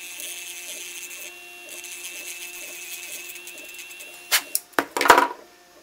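Small cordless rotary tool spinning a sanding drum with a steady high whine, smoothing the sharp edge and rough surface of a 3D-printed plastic snap hook. The whine stops about four and a half seconds in, followed by a few sharp clicks and a short burst of noise.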